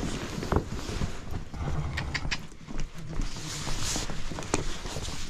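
Miniature horses' hooves shuffling and stamping on packed dirt as the ponies mill around, impatient for their feed, with scattered knocks and rustling close by.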